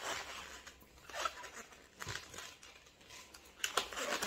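Inflated latex modelling balloon being handled and rubbed between the fingers: scattered soft rubbery rubbing sounds, a few louder ones near the end.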